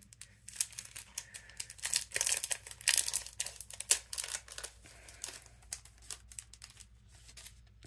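Cardstock and die-cutting materials being handled: a run of quick rustles and light clicks, busiest between about two and four seconds in, then thinning out.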